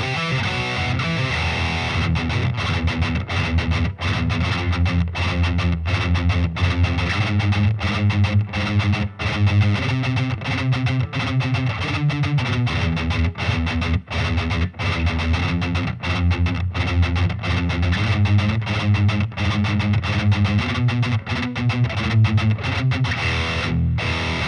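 Solar A1.7D LTD electric guitar played through a Peavey VYPYR 60 W combo amp on a heavily distorted setting, riffing on low chords with many short, abrupt stops.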